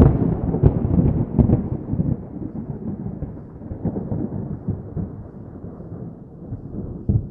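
Deep thunder-like rumble, a dramatic sound effect laid under an on-screen verse card. It is loudest at the start and slowly fades.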